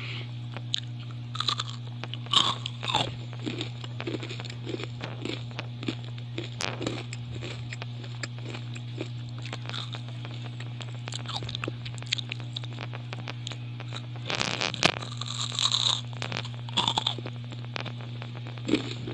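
Crunching and chewing of ampaw, a crisp puffed-rice cake, as it is bitten and eaten: a run of short crackly bites, with louder crunching about fifteen seconds in. A steady low hum runs underneath.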